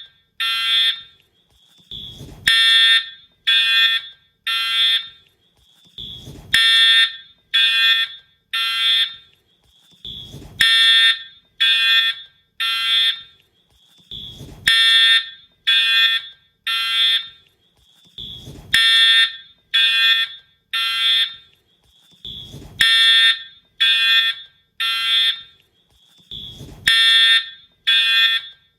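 Wheelock fire alarm horn/strobe sounding in the temporal-3 evacuation pattern: three harsh, buzzy half-second horn blasts, then a pause, repeating about every four seconds. A short low thump comes just before each set of three.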